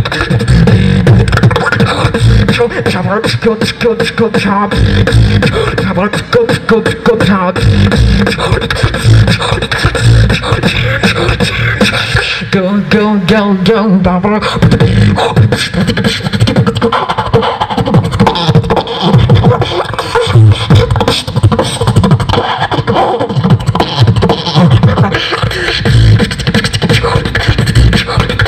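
A solo beatbox routine into a handheld microphone: a dense, steady run of vocal kick drums, snares and hi-hat clicks. A little under halfway through it breaks briefly into a pitched vocal sound that wavers up and down.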